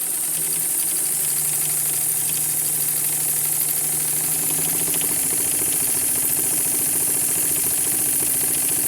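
Vintage Kenmore sewing machine running steadily, very loud, with a rapid mechanical clatter over its motor hum. The motor's pitch shifts about halfway through. The machine sits without a wooden base, which the owner blames for its uneven rumbly noises.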